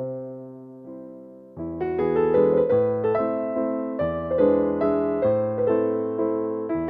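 Background music: a gentle solo piano piece, single notes struck and fading away, turning to a busier run of notes about one and a half seconds in.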